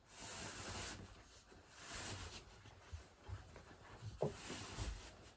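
Fabric tepee cover rustling as it is pulled and handled along a wooden pole, in two swells, with a few soft low knocks in the second half.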